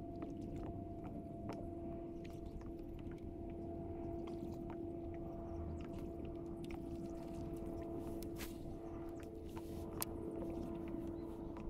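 A steady electric motor hum from the fishing kayak's motor, with many small clicks and ticks scattered over it; the sharpest tick comes about ten seconds in.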